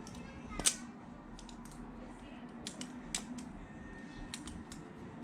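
Hinderer Nieves balisong being handled: irregular metallic clicks and clacks as the handles swing and tap against the blade, with one sharp clack about a second in.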